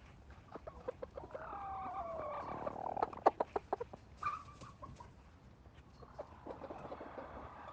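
Sleeping hens snoring on the roost: soft rattling trills and drawn-out, falling croaks. A louder rattle comes a little over three seconds in, with a short falling call just after.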